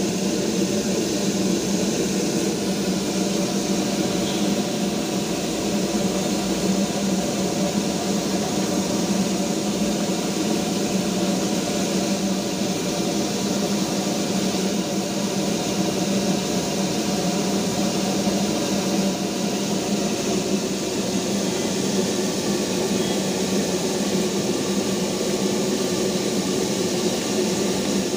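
Darjeeling Himalayan Railway steam locomotive standing with steam up, giving off a steady rushing hiss of escaping steam over a low, even hum.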